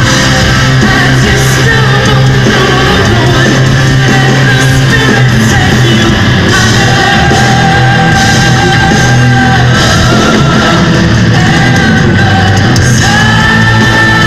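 Power metal band playing live: electric guitars, drums and keyboards under sung lead vocals with long held notes, recorded very loud from the audience.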